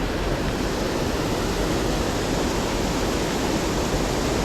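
Steady rushing of water from a waterfall, an even unbroken roar.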